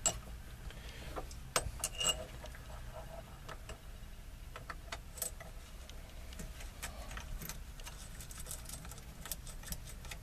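Light metallic clicks and clinks of small screws, washers and steering wheel puller parts being handled and fitted. The sharpest clicks come in the first two seconds, with a quieter scatter after that.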